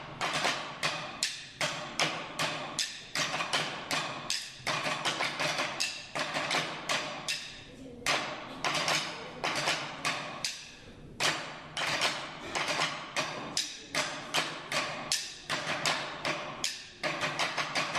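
Percussive music: sharp drum strikes in quick clusters, several a second, with brief lulls between phrases.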